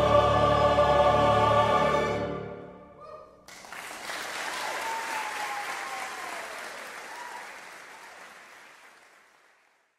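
Mixed choir, string quartet and piano holding the final chord on "one!", cut off about two seconds in and ringing briefly in the hall. Audience applause breaks out about three and a half seconds in, then fades out.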